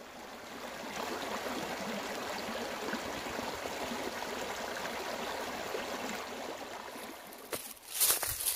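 Steady rush of a stream running. Near the end, a few footsteps crunch loudly on dry fallen leaves.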